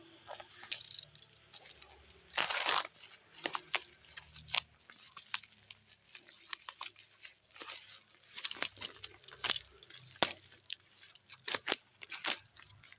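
Parcel being opened by hand: packaging torn and crinkled, with many short sharp clicks and crunches and one longer tearing sound about two and a half seconds in.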